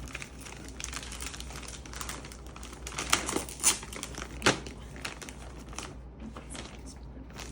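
Plastic crinkling and rustling as the packaging is handled, with several sharper crackles near the middle.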